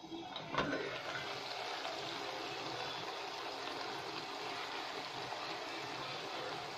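A metal pot lid is lifted with a single clink about half a second in, then vegetables in the uncovered pot sizzle steadily as they sauté.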